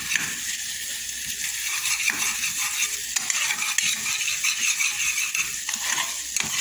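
Spice paste sizzling in hot oil in an aluminium pot while it is stirred and scraped, a steady high hiss broken by many short scraping clicks. The masala is being cooked down until it thickens.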